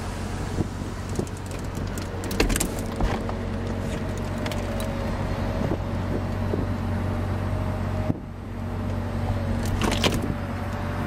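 A 2009 Cadillac XLR-V's power retractable hardtop folding down: a steady motor whine with a few clunks and clicks as the roof panels move. Under it, the car's supercharged Northstar V8 idles steadily.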